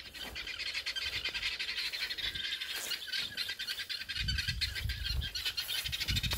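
Guinea fowl giving a rapid, unbroken rattling chatter, with a low rumble on the microphone about two-thirds of the way through.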